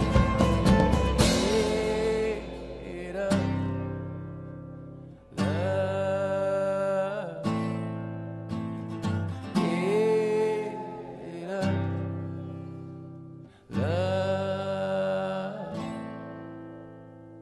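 Background song: a voice singing long held phrases over sustained guitar chords.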